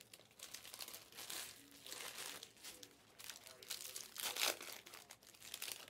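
Faint crinkling and rustling of plastic being handled, in scattered small crackles.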